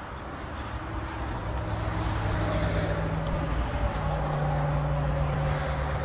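A steady engine drone with a low hum and a few held tones. It grows louder over the first couple of seconds and then holds, its pitch stepping up slightly about four seconds in.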